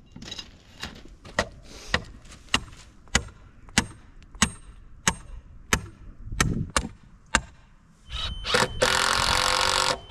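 Repeated sharp taps on a wooden concrete form board and stake, about one or two a second, as the board is set to grade. About eight and a half seconds in, a power drill runs steadily for about a second and a half, fastening the form to its stake.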